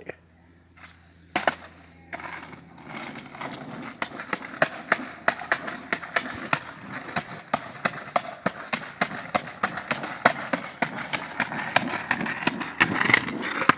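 Skateboard rolling on pavement, starting about two seconds in, with sharp clicks repeating two to three times a second over the steady rumble of the wheels.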